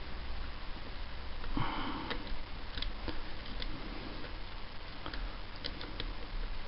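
Faint scattered ticks of a pick and tension tool working the telescopic pins of a Mul-T-Lock dimple cylinder stuck in a false set, with a short breathy sniff about one and a half seconds in.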